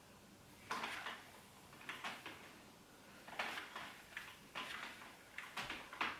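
A string of short rustling swishes of long hair being handled and pulled through a flat-iron straightener.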